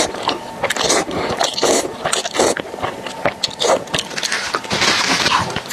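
Close-miked eating of saucy instant noodles: slurping the strands in and chewing with wet, irregular mouth clicks. There is a longer hissing slurp about five seconds in.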